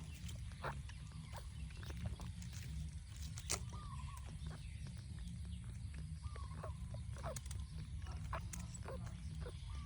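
A baby monkey giving a few short, thin calls over a steady low rumble, with scattered small clicks and knocks.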